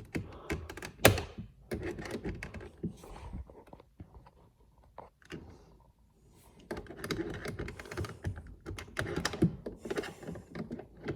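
Plastic interior door trim of a Toyota Corolla hatchback being pried loose: irregular clicks, knocks and small scrapes of plastic against plastic, with a louder knock about a second in and a short quiet pause midway.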